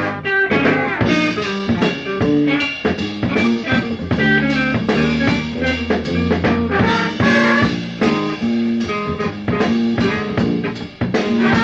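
Funk instrumental played by a band with electric bass, guitar and drums and a horn section, the guitar prominent over a steady groove.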